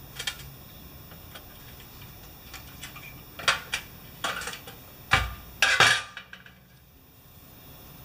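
Small metal tools clinking and clattering against a steel drain pan, with a few scattered clicks and then a burst of rattles, including one heavier clunk about five seconds in as a tool is set down in the pan.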